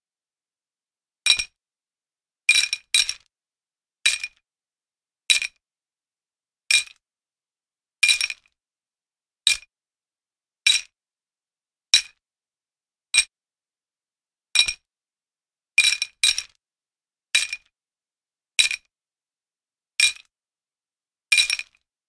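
Metal chain jingling in short shakes, one about every second and a quarter, each a bright clinking ring that dies away quickly; a few come as two jingles close together.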